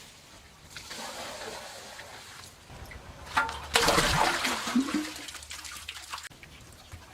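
Water pouring and splashing, with a louder stretch of splashing from about three to six seconds in.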